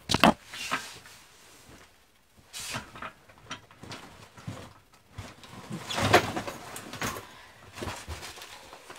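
Rummaging under a desk: scattered knocks, clicks and rustles of things being moved and handled, with a louder flurry about six seconds in.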